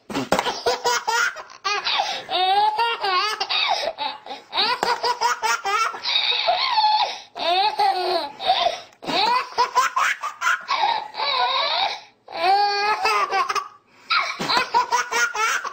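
A baby laughing hard in repeated bouts of high, bubbly peals, with brief pauses for breath between bouts.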